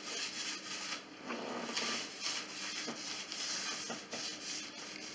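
Paper towel brushed in repeated strokes over bare wooden boards, wiping off the loose splinters raised by scoring the wood with a wallpaper scraper.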